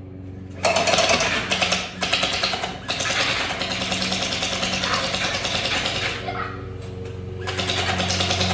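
Electric gel blaster firing on full auto in long bursts, a fast mechanical rattle. It starts about half a second in, stops around six seconds, and starts again about a second and a half later.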